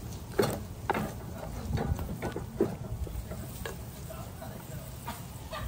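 Wooden spoon stirring and scraping thick curry seasoning in a metal pot, with irregular knocks and scrapes of the spoon against the pot.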